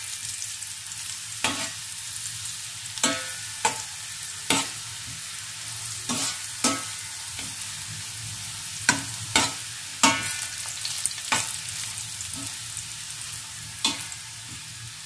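Cut pappadam pieces frying in oil in a stainless steel pan, with a steady sizzle. A slotted metal spatula scrapes and clinks against the pan about a dozen times at an uneven pace as the pieces are stirred.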